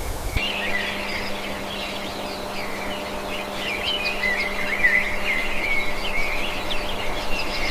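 Birds chirping and twittering: many rapid, short high chirps over a steady low hum.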